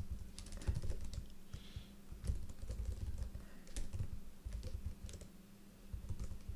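Typing on a Lenovo ThinkPad laptop keyboard: irregular key clicks in quick runs, with short pauses between.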